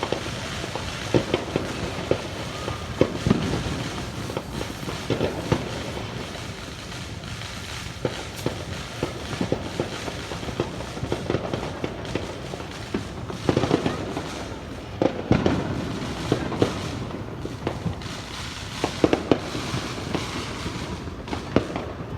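Fireworks going off: an irregular run of pops and booms, with denser clusters around the middle and again near the end.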